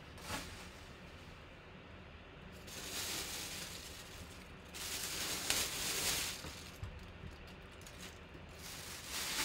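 Thin plastic bag crinkling and rustling as it is pulled off a full-size football helmet, in bursts about three seconds in, around five to six seconds in, and again near the end. A faint steady hum lies underneath.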